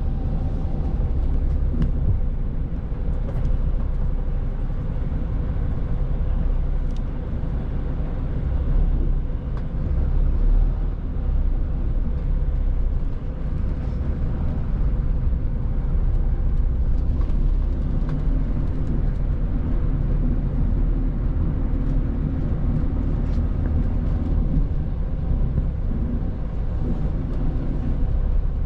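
Mitsubishi Fuso Aero Ace coach's diesel engine running as it pulls away and moves slowly through the street, heard from inside the passenger cabin: a steady low rumble with a faint steady whine over it.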